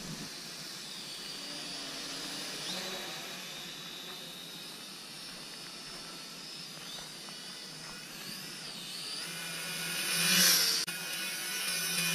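Small toy quadcopter drone's motors whining faintly in the distance, the pitch wavering up and down, over a steady hiss of wind. The whine grows loud about ten seconds in as the drone comes in close, and breaks off sharply a moment later.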